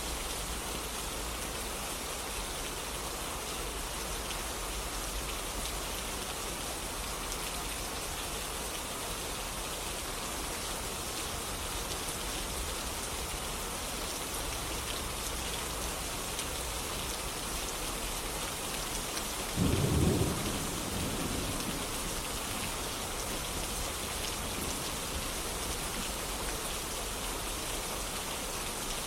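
Steady rain falling and pattering on surfaces. About two-thirds of the way through, a short clap of thunder, the loudest thing heard, rumbles low and fades over a couple of seconds.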